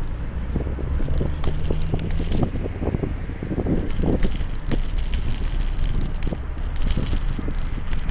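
Wind buffeting the microphone on a moving bike: a steady low rumble with many scattered clicks and rattles from the bike over the road surface.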